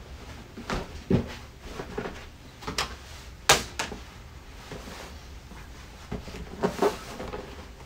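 Packaging of a boxed collectible figure being handled during unboxing: several sharp clicks and knocks, the loudest about three and a half seconds in.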